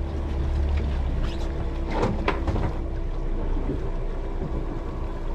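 Outboard motor running steadily at trolling speed, with water washing past the boat. A couple of sharp knocks about two seconds in.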